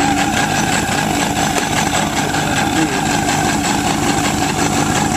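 Yamaha RX-1 snowmobile's 998 cc four-cylinder four-stroke engine idling steadily, just after its four carburetors were cleaned and refitted to cure missing and flooding.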